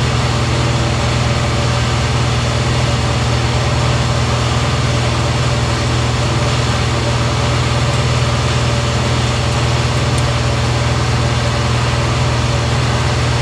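Shop air compressor running, a loud, steady low hum with an even mechanical drone that does not change.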